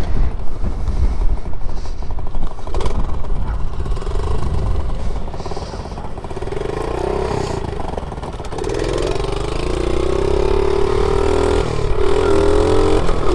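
50cc pit bike engine running. A rough rumble fills the first half, and from about two-thirds of the way in a steady engine note stands out and climbs slowly in pitch as the bike is revved or pulls away.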